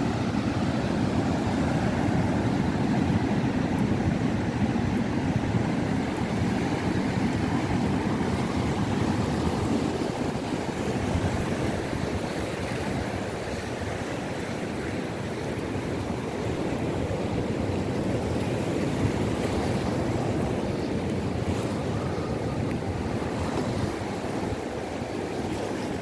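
South Atlantic surf breaking and washing up a sandy beach: a steady rushing noise with no distinct crashes.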